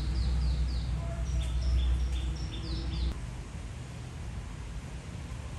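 Birds chirping in quick series of short, high, descending notes, over a low steady rumble that cuts off abruptly about three seconds in.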